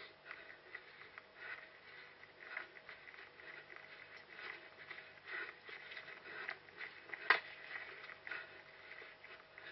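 A runner's footsteps and rustling, heard from a head-mounted GoPro: soft irregular scuffs about once a second. A single sharp knock about seven seconds in is the loudest sound.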